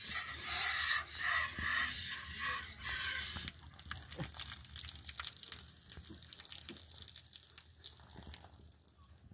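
Hand-milking a cow into a plastic jug: milk squirts from the teats into the jug with a hiss about twice a second. After about three and a half seconds the squirts stop and only faint small clicks and rustles remain.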